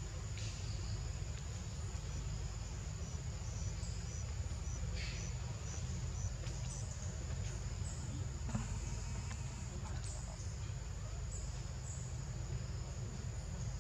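Forest insects: a steady high-pitched drone, with a short run of quick repeated chirps a few seconds in, over a steady low rumble.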